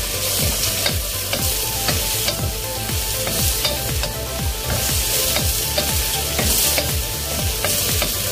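Sliced eggplant and onion sizzling in a hot wok while a wooden spatula stirs them, with frequent scrapes and taps of the spatula against the wok.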